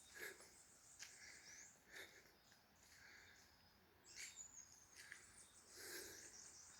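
Near silence: faint scattered ticks and a couple of faint high chirps.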